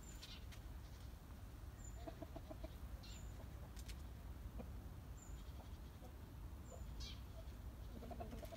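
Chickens clucking faintly, with a quick run of clucks about two seconds in, while small birds give brief high chirps every second or so.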